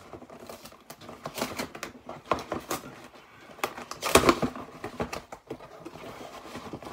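Cardboard mailing box being torn open by hand: crackling cardboard and tape ripping in short irregular pulls, with the loudest rip about four seconds in.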